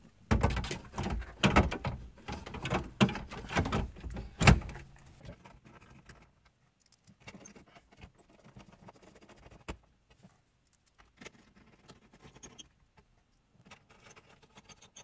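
Hand work on car stereo wiring: a few seconds of clicking and rattling handling noise, the sharpest knock about four and a half seconds in, then only scattered faint clicks.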